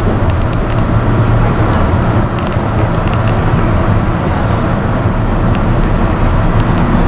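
Amtrak passenger train running, heard from inside the coach: a steady low rumble with irregular light clicks and rattles.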